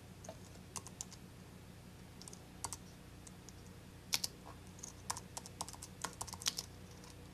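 Typing on a computer keyboard: scattered key clicks, a few at first, then a quicker run from about four seconds in.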